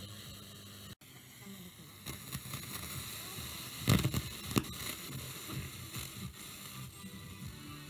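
Homemade germanium-transistor FM receiver with a low intermediate frequency, heard through an external amplifier, hissing and crackling with static as its tuning knob is turned between stations, with faint fragments of broadcast. The sound cuts out briefly about a second in, and two loud crackling thumps come about four seconds in.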